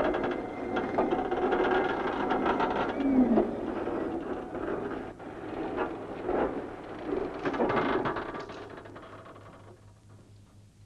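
Tower crane machinery clattering and whirring with many small clicks, fading out near the end.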